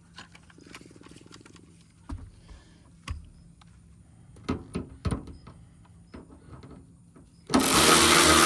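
Scattered knocks and clicks of parts being handled, then a cordless electric ratchet running in one loud burst of about a second and a half near the end.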